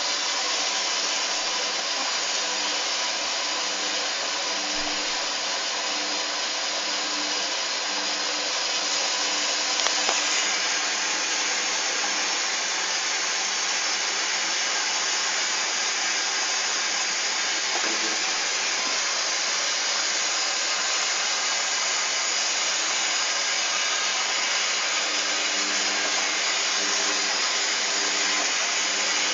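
Hoover Dynamic front-loading washing machine on its rinse cycle, giving a steady rushing hiss with a faint low hum that comes and goes.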